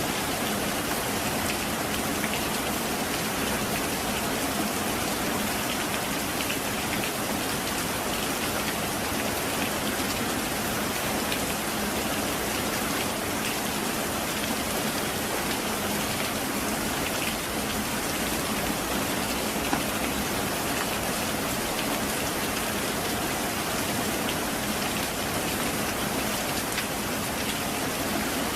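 Heavy rain falling steadily, an even, dense hiss of drops that neither builds nor fades. One slightly louder tap stands out about two-thirds of the way through.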